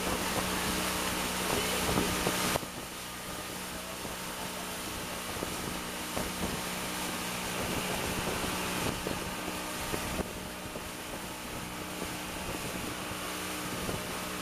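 Motorboat engine running with a steady hum, mixed with wind and water noise. The sound drops suddenly in level about two and a half seconds in, then carries on steadily.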